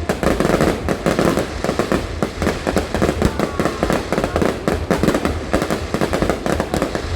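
Fireworks going off in a dense, continuous barrage of bangs and crackles, many per second.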